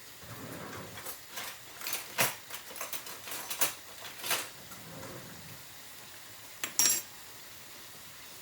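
A metal cooking utensil scraping and clicking against a frying pan while stir-frying, over a faint steady sizzle. About seven seconds in comes a single sharp metal clatter that rings briefly.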